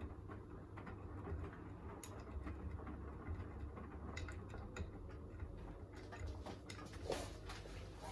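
Beko WTK104121A washing machine running its wash cycle: a steady low hum with scattered light clicks and patter from the load turning in the drum.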